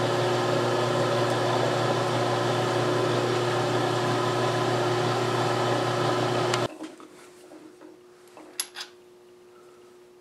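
Small benchtop milling machine's spindle motor running steadily with a drill bit in the chuck, then stopping abruptly about six and a half seconds in. A couple of faint clicks follow as the part is handled.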